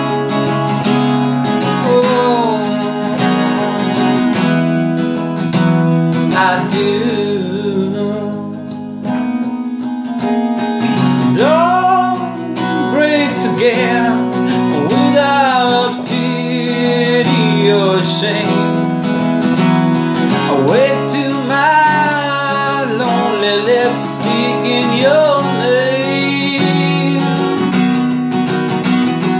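A man singing a slow song over his own acoustic guitar.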